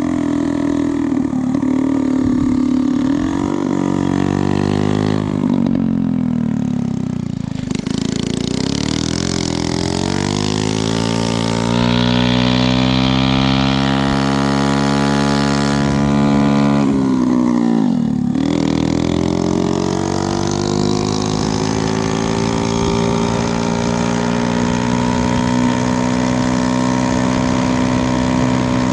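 Honda QA50 minibike's small single-cylinder four-stroke engine running under way. Its note falls off around six seconds in, climbs again as it picks up speed, dips sharply about eighteen seconds in, then rises and holds steady.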